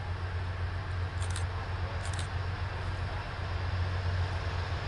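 Steady low drone of two LHS ST40 diesel locomotives approaching from a distance with an ore train. Two brief high chirps sound about one and two seconds in.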